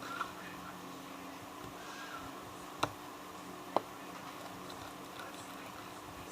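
Slime being stirred in a container as it clumps up: quiet with a faint steady hum, and two sharp clicks about a second apart near the middle as the stirrer knocks the container.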